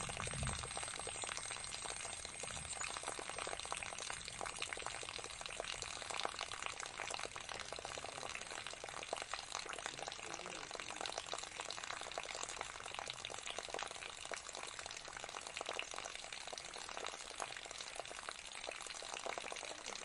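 Tabletop pot fountain: a thin stream of water pouring from a tilted jug into a small bowl and trickling over into the basin below, a steady, unbroken splashing trickle.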